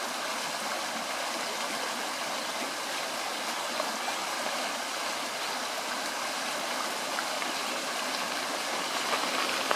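Shallow creek flowing steadily, an even rushing of water, with a few small clicks near the end.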